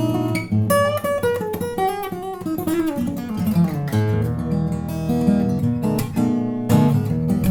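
Bellame W-180 acoustic guitar being played: strummed chords, then a run of single notes stepping down in pitch about a second in, letting chords ring before strumming again near the end.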